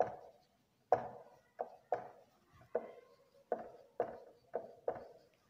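Whiteboard marker writing on a whiteboard: about nine short, irregular knocks as the marker strikes and strokes the board, each dying away quickly.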